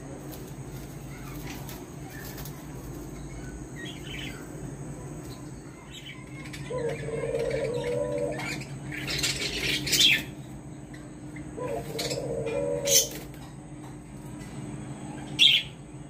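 Caged doves cooing: two low, wavering coos, about seven and twelve seconds in, each under two seconds long. A burst of wing flapping comes between them, and three sharp clicks, the loudest sounds, fall about ten, thirteen and fifteen seconds in, over a steady background hum.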